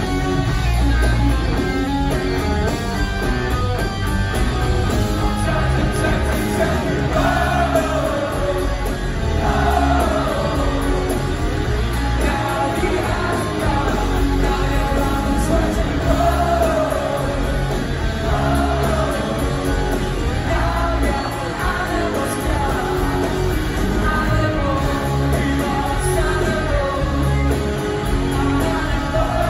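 Live rock band playing with electric guitars, bass and drums, and a male lead singer singing phrases that fall in pitch every few seconds, heard from within the audience.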